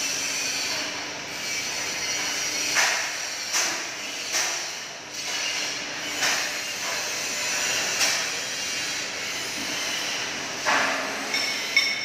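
Scattered knocks and clinks of metal parts and tools being handled around a Toyota forklift engine during reassembly, over a steady hiss. Near the end come a few short, ringing metallic taps.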